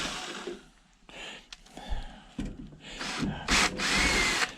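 Cordless drill-driver with a Phillips bit, driving screws out of a beverage dispenser's sheet-metal door. The motor whirs in short runs, its pitch rising and then holding. One run trails off at the start and another comes about three and a half seconds in, with scattered clicks and knocks from handling in between.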